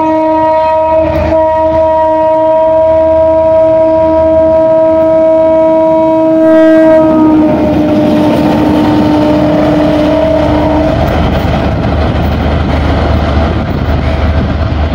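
EMD GR12 diesel locomotive sounding a long multi-note horn chord as it approaches and passes close, the chord dropping slightly in pitch about seven seconds in and trailing off by about eleven seconds. The locomotive's engine and wheel noise carries on under the horn and alone after it.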